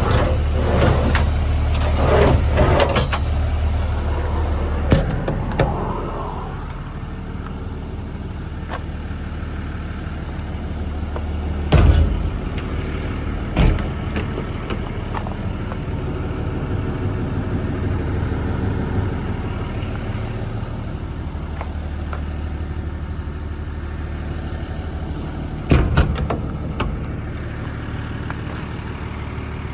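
International 4300 service truck's diesel engine idling steadily, with several sharp metal bangs of the service-body compartment doors being opened and shut, about five seconds in, around twelve and fourteen seconds, and near the end.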